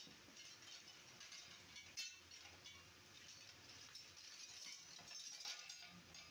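Faint scratchy rubbing of hands smoothing and pressing moulding sand over a pattern in a sand-casting flask, with a single sharp click about two seconds in.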